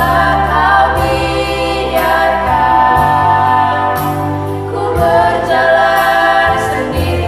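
A group of children singing a Christian praise song together over instrumental accompaniment, with a steady bass line changing note about once a second.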